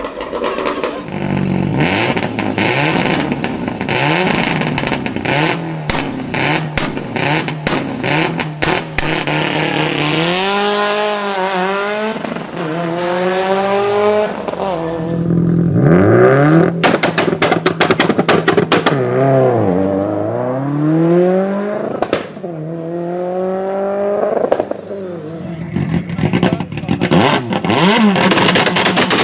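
Performance car engine revved up and down again and again, with rapid exhaust pops and crackles in dense clusters between the revs.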